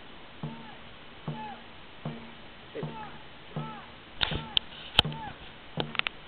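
Dragon boat crew's short rhythmic calls keeping the stroke, each rising then falling in pitch, repeating about every 0.8 s. Several sharp clacks come between about four and six seconds in.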